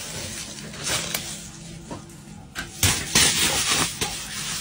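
Bubble wrap being crumpled and squeezed by hand, crinkling with sharp pops; the loudest burst of crackling comes about three seconds in.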